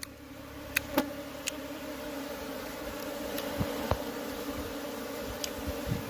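A colony of honeybees buzzing around their exposed, freshly cut comb: a steady droning hum that swells over the first second or two. A few sharp ticks come in the first second and a half.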